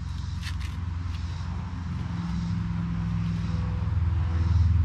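A low, steady engine drone that swells louder near the end. A few sharp clicks come about half a second in as the folding cart's frame is handled.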